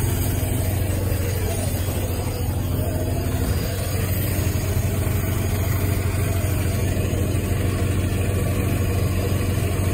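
An engine idling steadily, a low even hum. A higher steady tone in it drops away about three and a half seconds in.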